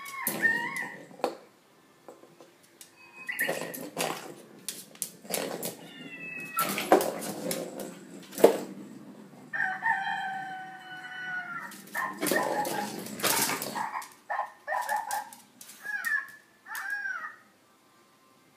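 A sound-making toy ball playing short electronic animal-like calls in separate bursts as a small dog paws it around a tile floor. Between the calls the ball and the dog's claws clatter on the tiles.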